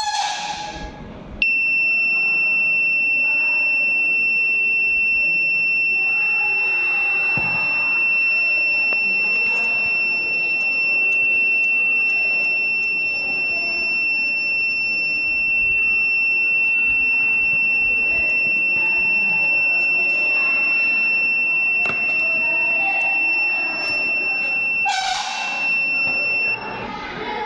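Small buzzer on an Arduino rain sensor sounding one continuous high-pitched tone, starting about a second and a half in and cutting off suddenly near the end: the alert that water has been detected on the sensor plate.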